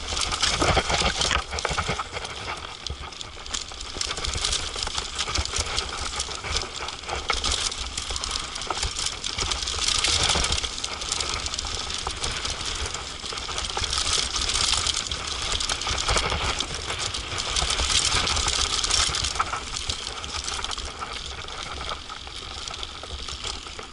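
Mountain bike rattling and clattering hard as it descends a rough dirt trail at speed, with a constant hiss of tyres on dirt and a low wind rumble on the microphone.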